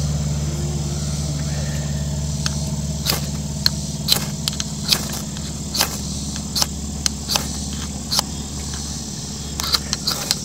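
Ferrocerium fire steel scraped again and again with its striker: about a dozen short, sharp rasps, starting a couple of seconds in and quickening near the end. A steady low engine-like hum runs underneath.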